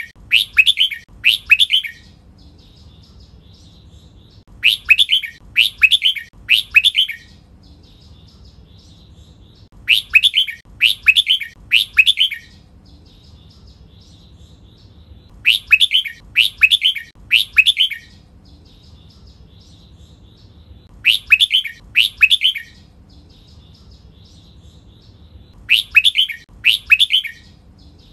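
Red-whiskered bulbul singing: short bouts of two or three quick, clear falling phrases, repeated about every five seconds, with faint chirps in between.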